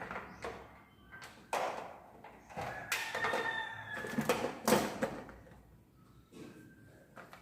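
Packaging being handled as accessories are taken out of a voice amplifier's box: rustling and scraping in several short, irregular bursts.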